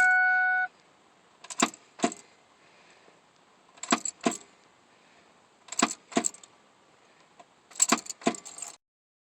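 A short beep, then four pairs of sharp clicks about two seconds apart with keys jangling, and no engine cranking or running between them: the ignition key of a Ford F150 turned to start and released again and again while the engine fails to crank, a sign of a failing starter.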